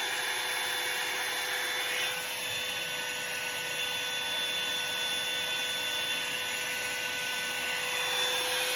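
Revlon hair dryer brush (one-step dryer and volumizer) running steadily: the fan motor whirring with a steady high whine over the rush of air.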